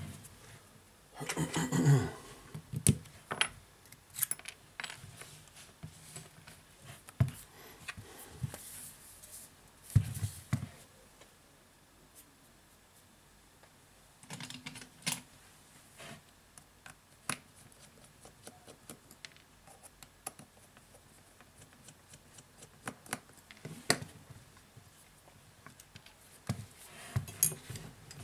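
Hand-handling noise of a Huawei P10 smartphone and its small parts on a work mat: scattered light clicks and taps with a few short scraping rubs.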